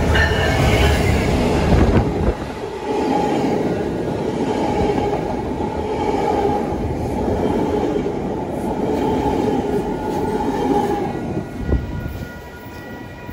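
Metrolink MP36PH diesel locomotive passing close by, its engine rumbling loudly for the first two seconds. Bi-level passenger coaches then roll past with steady wheel and rail noise, which fades near the end as the trailing cab car goes by.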